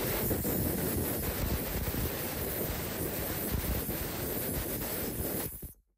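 Steady blast of compressed air from a handheld air blow gun, blown at a cleaned roofing-nailer part to clear debris from its air passages. It cuts off suddenly near the end.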